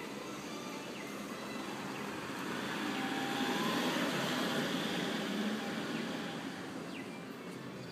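A vehicle passing along the street, its noise swelling to a peak midway and then fading away.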